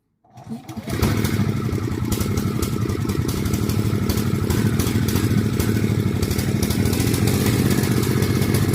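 A 24-volt truck parking generator's engine starting up about half a second in, then running steadily. This is the ordinary model, noisier than the quiet version.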